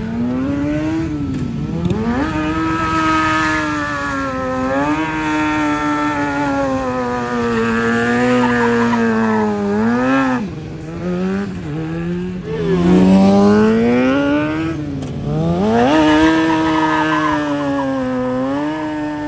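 Motorcycle engine revving hard and held high, its pitch swinging up and down and dropping sharply several times before climbing back.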